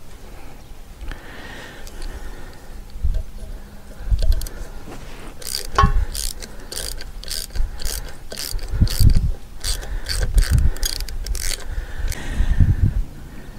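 A ratchet spanner clicking in quick, even strokes, about three a second, for some six seconds from about five seconds in, as the bolts of an old aerial bracket are undone. Low gusts of wind rumble on the microphone.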